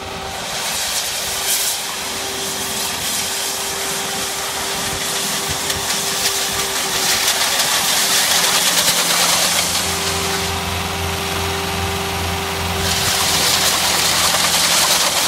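Wacker Neuson CRT60-74LX ride-on power trowel running as it is driven, a steady engine note with a whine. A high hiss swells about eight seconds in and again near the end.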